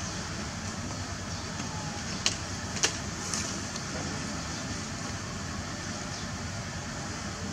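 Steady outdoor background noise, an even hum-like rush with no clear source, broken by two short sharp clicks about half a second apart a couple of seconds in.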